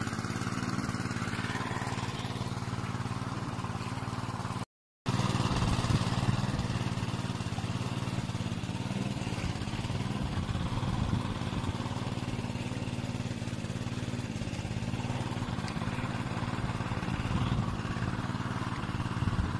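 An engine running steadily at an even speed, with a brief cut to silence about five seconds in.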